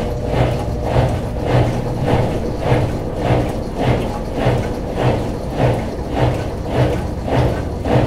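GE Spacemaker WSLS1100 top-load washing machine agitating: the agitator swishes the load back and forth in an even rhythm of nearly two strokes a second over the steady hum of the motor.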